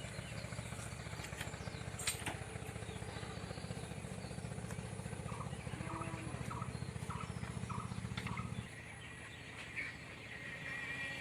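Chickens giving a few short clucks over a steady low motor-like rumble that cuts off abruptly near the end.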